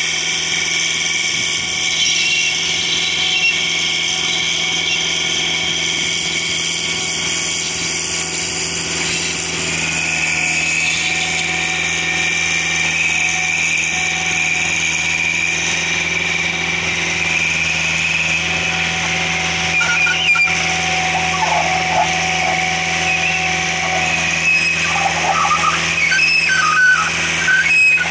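Vermeer RTX450 riding trencher's 50-horsepower engine running steadily under load while its digging chain cuts through dirt. Irregular clatters and rattles come in over the last several seconds.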